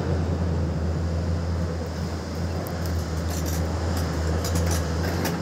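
Tracked hydraulic excavator's diesel engine running steadily under load, a constant low drone.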